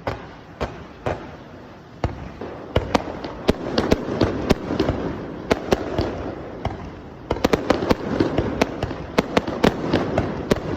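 Fireworks bursting: a rapid run of sharp cracks over a dense crackle. It thickens about two seconds in, eases briefly around seven seconds, then builds again.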